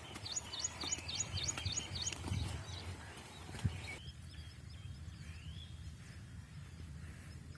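A bird calling a quick run of high, falling chirps, about four a second, for the first two seconds, then a few fainter notes. Underneath are a low outdoor rumble and scattered thuds, with one sharp click midway.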